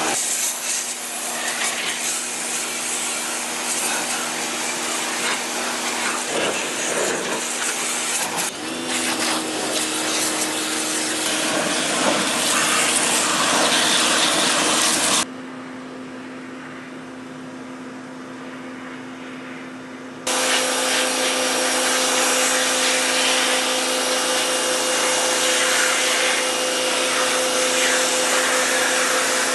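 Harbor Freight Portland 1750 PSI electric pressure washer running, its motor humming steadily under the hiss of the high-pressure water spray. About halfway through, the spray hiss drops away for about five seconds, leaving a quieter hum, then comes back.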